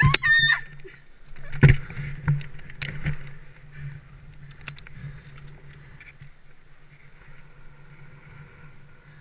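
Wind rushing over a body-mounted action camera's microphone as a bungee jumper falls and swings on the cord. There is a short high-pitched cry from the jumper at the very start and a few sharp knocks in the first three seconds, then the noise settles quieter.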